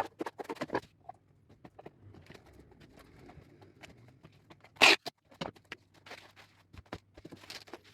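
Packing a parcel: irregular crackling and rustling of packaging, with one short, loud rasp of packing tape pulled off the roll about five seconds in.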